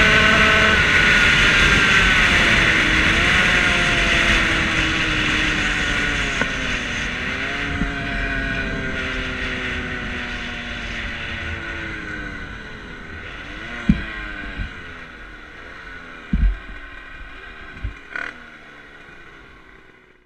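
Rieju MRT moped's two-stroke engine, fitted with an 86 cc aluminium cylinder kit, slowing off the throttle. Its pitch falls steadily with several short upward jumps as it is shifted down, under wind noise that fades as the speed drops. A few short knocks come in the last few seconds.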